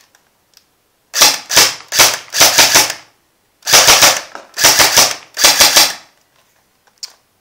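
Tokyo Marui SIG 552 electric airsoft gun firing single shots on semi-automatic: about a dozen quick shots in two strings, with a short pause about halfway.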